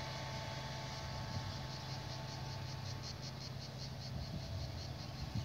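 Summer insects chirping in a fast, even pulsing rhythm, about five pulses a second, that becomes clear about two seconds in, over a steady low hum.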